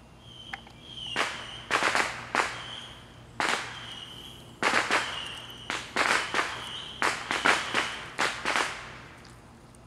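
Firecrackers going off: an irregular string of about fifteen sharp bangs in quick clusters, starting about a second in and ending near the end, with short high whistles between some of the bangs.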